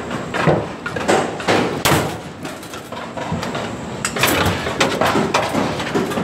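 Steel rebar being worked with a long-handled hand tool: a run of irregular metallic knocks and clanks. There is a quieter stretch in the middle, and the knocks come thicker again from about four seconds in.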